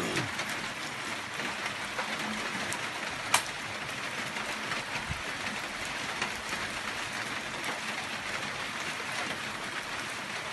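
Steady rain falling, an even hiss of drops on the ground and leaves, with one sharp click a little over three seconds in.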